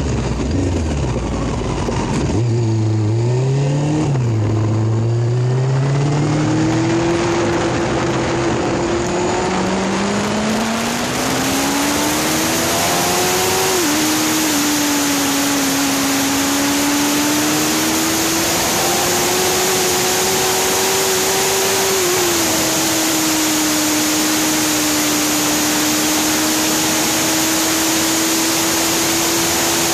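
Motorcycle engine pulling away and climbing in pitch as it speeds up, then running at a steady cruise, with a couple of small dips in pitch. Heavy wind rush on the phone's microphone grows as speed picks up.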